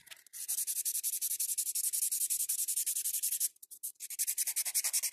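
Hand nail file rubbing in quick back-and-forth strokes across an acrygel nail extension, a fast, even rasping run. It is shaping and refining the nail. The strokes pause briefly about three and a half seconds in, then resume.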